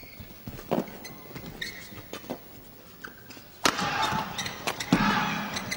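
Badminton doubles rally: shuttlecock struck back and forth with sharp racket hits, amid shoe squeaks on the court. A little over halfway through, crowd noise swells up suddenly in the arena.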